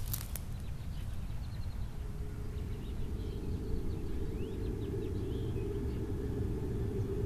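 Outdoor ambience: a steady low rumble like wind on the microphone, with faint short bird chirps. A steady low hum comes in about two seconds in.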